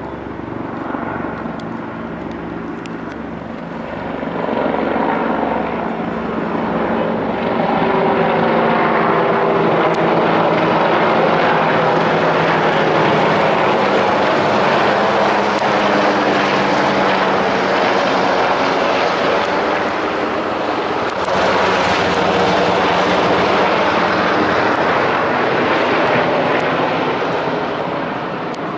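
Two AH-64 Apache Longbow attack helicopters passing low overhead, the rotor blade chop and the whine of their twin turboshaft engines loud together. The sound grows louder over the first several seconds, holds through the pass and eases slightly near the end.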